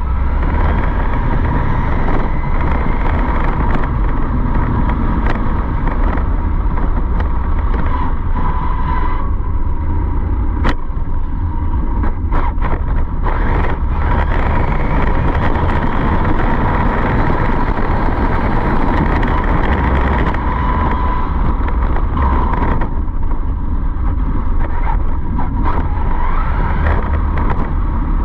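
A vehicle running steadily, a deep rumble under a constant whine that holds its pitch, with a few short clicks.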